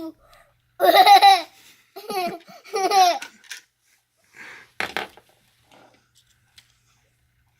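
A young child laughing in three short, high-pitched bursts, followed by a few light knocks.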